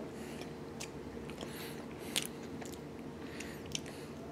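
Close-up eating sounds: a person biting and chewing food, with scattered wet clicks and crackles and a couple of sharper snaps about two seconds in and near the end.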